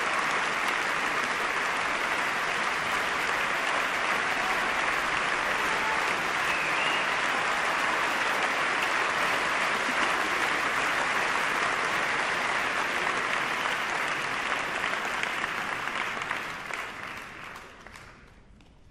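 Audience applauding steadily in a concert hall, the clapping dying away over the last few seconds.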